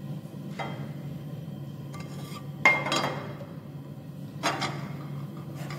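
Metal kitchenware clinking against an aluminium frying pan four times, the loudest about halfway through, over a steady low hum.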